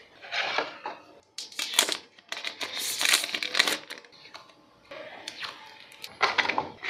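Thin plastic film crinkling and rustling in uneven bursts as it is peeled off a phone charger and handled, with a few sharp crackles; the loudest stretch comes about two to four seconds in.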